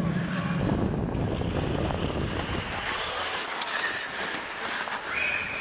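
Ice skate blades scraping and carving on the rink while skating, with wind rushing over a body-worn camera's microphone. A few sharp clicks come in the second half.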